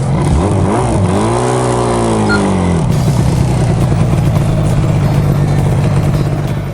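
Yamaha RZ250 two-stroke parallel-twin engine blipped twice, then revved up and back down once, and settling to steady running after about three seconds.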